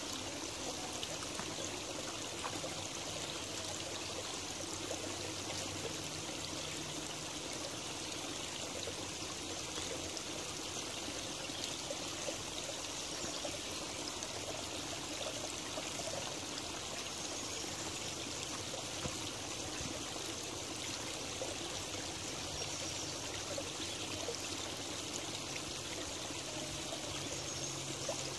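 Shallow creek water running and trickling steadily over leaves and stones.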